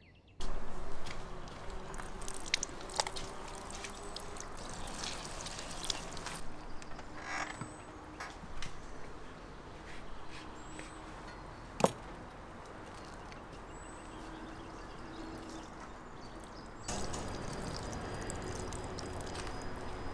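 Oranges being cut with a knife and squeezed by hand, juice dripping into a plastic bowl of salmon, with scattered small clicks and one sharp knock a little past halfway. A few faint bird chirps in the background.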